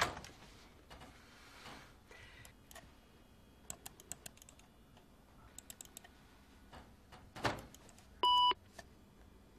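Scattered clicks of a computer mouse and keyboard, in small clusters, then one short electronic beep from the computer a little over eight seconds in.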